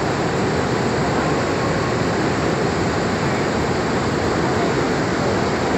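Fast-flowing floodwater from a dam break, rushing in a steady, unbroken roar.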